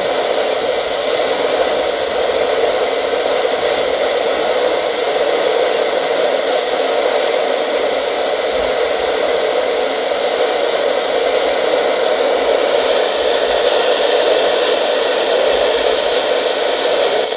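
Weather radio receiver giving a loud, steady static hiss while no broadcast audio comes through. The hiss cuts off abruptly at the end.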